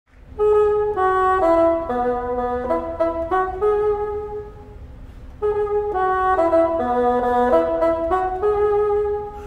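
Solo bassoon playing a melody of short, stepping notes in two similar phrases, with a brief pause between them about five seconds in.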